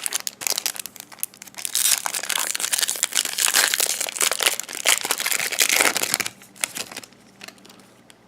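Foil wrapper of a Topps baseball card pack crinkling as it is handled and torn open. The dense crackling lasts about seven seconds, loudest in the middle, then dies away.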